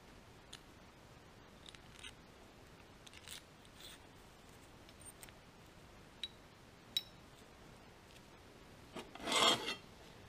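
Faint, scattered metallic clicks of steel washers and a thrust bearing being handled and slid onto a threaded shaft, then a louder rubbing scrape lasting under a second near the end.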